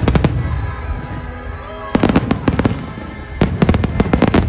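Aerial fireworks bursting: quick volleys of sharp bangs and crackles in three clusters, one as it begins, another about two seconds in, and a longer one from about three and a half seconds. Faint music plays underneath.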